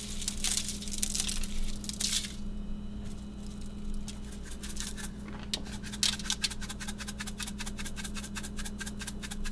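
Seasoning shaken out of a spice shaker over raw fish fillets for the first couple of seconds. From about five and a half seconds in, a hand spice grinder is twisted, making a fast, even run of clicks.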